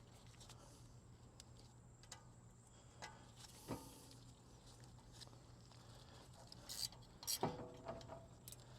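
Faint metal clicks and taps, with two louder ringing clinks about four seconds in and near the end: a hex key and the brake rotor's small retaining screw being worked into the new rotor.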